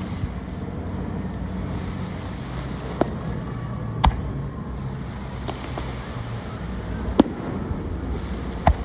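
Fireworks shells bursting: four sharp bangs in two pairs, one pair about three and four seconds in and the other near the end, over a steady low rumble.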